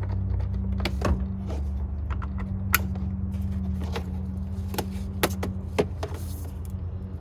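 Sharp clicks and knocks of plastic car door trim and parts being handled and fitted while a door panel is reassembled, over a steady low hum.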